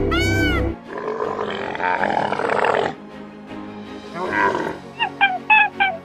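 A harsh, drawn-out animal call lasting about two seconds, then a shorter call, then a run of quick, high chirping calls several times a second, over faint background music.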